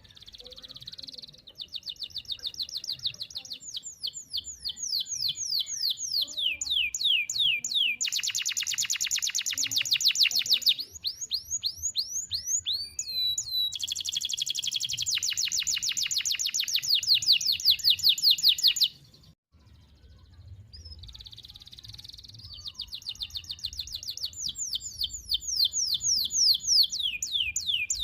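Domestic canary singing a long song of rapid, high-pitched trills, each a fast run of repeated sweeping notes, switching from one trill type to the next. The song breaks off for about two seconds roughly two-thirds of the way through, then starts again.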